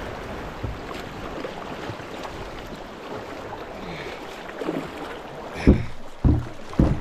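Fast river water rushing steadily around a canoe being paddled toward the bank, with three loud thumps in the last second and a half.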